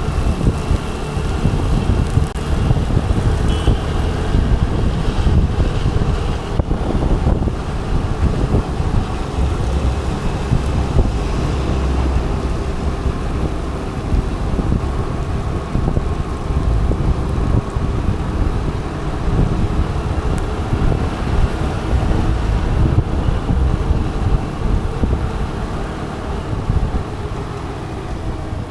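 Wind rushing over the microphone of an action camera on a moving scooter, over the steady running of the scooter and the noise of road traffic.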